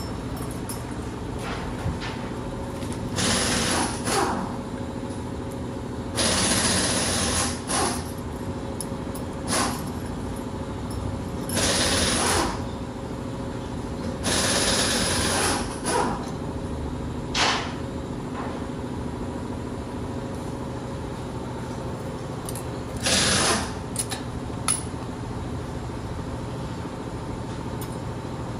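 Power tool running in five short bursts of about a second each, over a steady hum.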